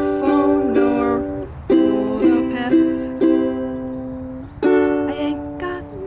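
Kala ebony tenor ukulele strumming chords in an uneven pattern, each strum left to ring and the chords changing several times.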